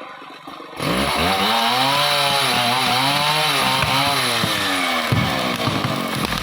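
Two-stroke chainsaw revved up about a second in and cutting into a merbau tree, its engine pitch rising and falling under load. Near the end the clear engine note gives way to a rougher, noisier sound.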